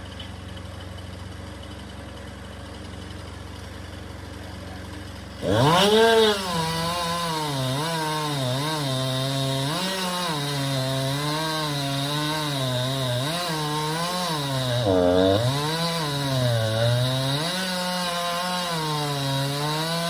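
A low steady engine hum, then about five seconds in a chainsaw throttles up suddenly and runs on with its pitch repeatedly dipping and rising, as it does when cutting into tree wood.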